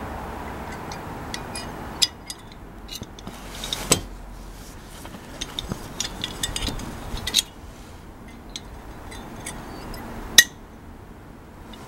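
Metal clicks and clinks from a safety belt's large steel lanyard snap hook being handled, its spring gate and locking lever snapping as they are worked. There are several sharp clicks, the loudest about ten seconds in, with smaller rattles between them.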